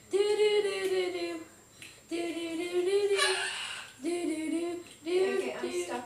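White cockatoo vocalizing in a sing-song, voice-like way: four wavering, held tones about a second each with short gaps, the second one turning into a harsher, noisier call near its end.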